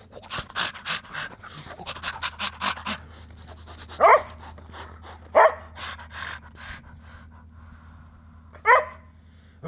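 A man making animal noises: quick, rhythmic panting, then three short, loud yelping howls that rise in pitch.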